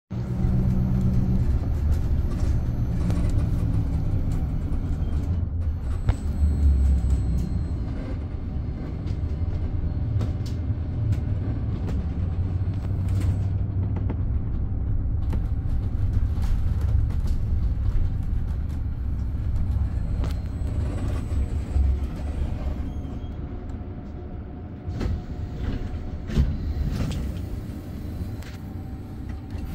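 Scania Higer Fencer F1 Integral battery-electric bus on the move: a steady low rumble with scattered knocks and rattles and faint steady tones over it. It gets quieter in the last several seconds.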